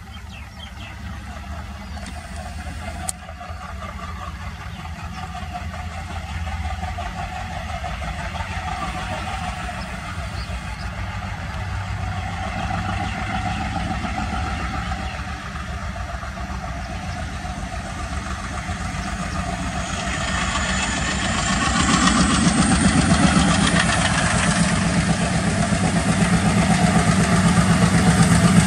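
Alco diesel locomotive engine chugging as it approaches, growing steadily louder and then much louder about three quarters of the way in, with a rising hiss joining the low rumble.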